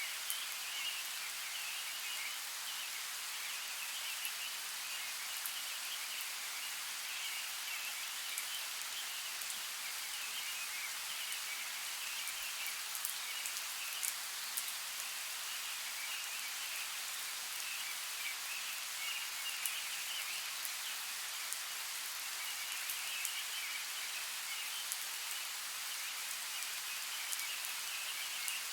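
Steady rain falling in a forest: an even hiss of rain with scattered sharp drips, and a flickering, chirring layer running through it.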